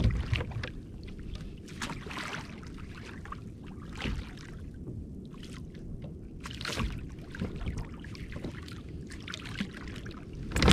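Water splashing and sloshing at the side of a kayak in short irregular bursts as a hooked barracuda thrashes at the surface.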